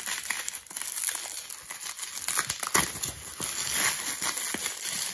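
Plastic bubble wrap crinkling as it is handled and pulled off a boxed book, with many small sharp crackles throughout.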